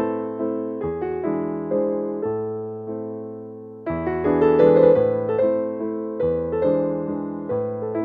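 Background piano music: a soft melody of struck notes and chords, dying away about three seconds in before a fuller phrase begins.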